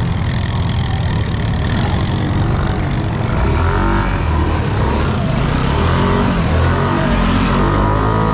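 A vehicle engine running with a low rumble. From about three seconds in it revs up and down several times, its pitch rising and falling.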